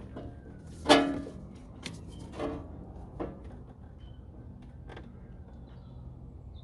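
Several knocks and clicks of a cold air intake pipe being handled and lined up in a car's engine bay, the loudest about a second in with a brief ring, over a low steady hum.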